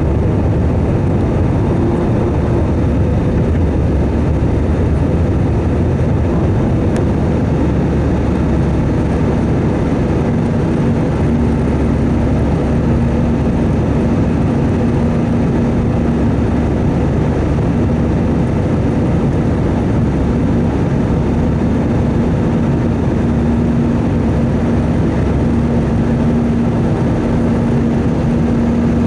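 Steady roar of engine and airflow noise inside the cabin of an Airbus A320 airliner. A steady hum sets in about ten seconds in and holds.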